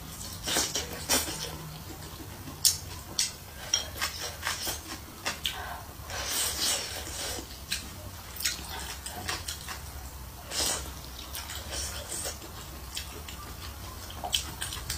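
Eating sounds: wet chewing and lip smacks as rice and braised pork are eaten, with many short sharp clicks scattered irregularly.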